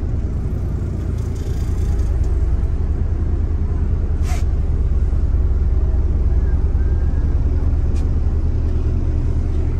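Steady low machinery rumble inside a boat's cabin, with a short click about four seconds in.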